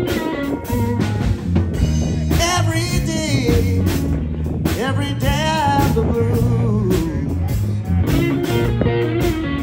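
Live blues band playing: electric guitar over electric bass and a drum kit, with gliding, wavering notes above a steady bass line.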